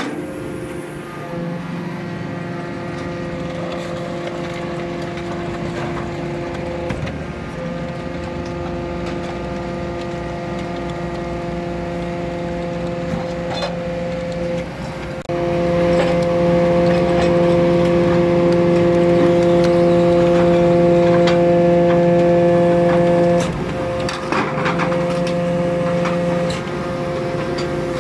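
Hydraulic scrap-metal baling press running, its pump putting out a steady, even whine. The whine jumps louder for about eight seconds in the middle as the press cylinders work, then falls back, with a few sharp metallic clicks.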